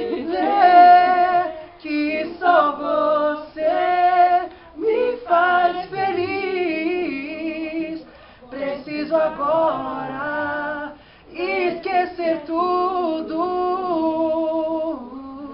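A man singing a pop ballad a cappella, with sustained held notes between shorter sung phrases.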